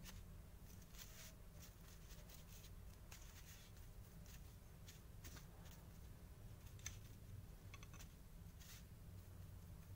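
Faint, irregular scratching of a stiff-bristle paintbrush scrubbing a diecast toy car's metal body, brushing off old paint that has been loosened for stripping, over a low steady hum.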